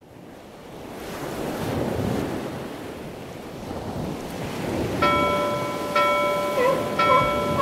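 Channel intro sting: a rushing noise like surf or wind swells up from quiet, then about five seconds in a bell-like chime begins, struck again about once a second.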